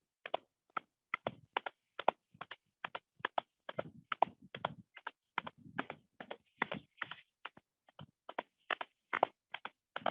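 Hands patting the knees in a steady rhythm, about two to three pats a second.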